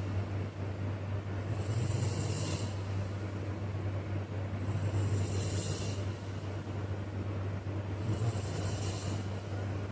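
A sleeping person snoring, with a hissing breath about every three seconds, three in all, over a steady low hum.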